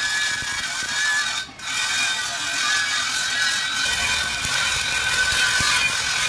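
Stick (arc) welding on a steel truck wheel: the electrode's arc crackles and sizzles steadily, dropping out briefly about a second and a half in before carrying on.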